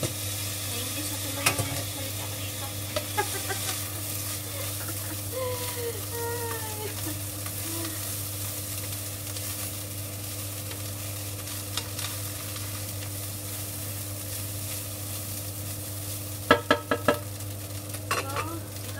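Fried rice sizzling in a frying pan while a wooden spatula stirs and scrapes through it, over a steady low hum. A few sharp knocks come in quick succession near the end.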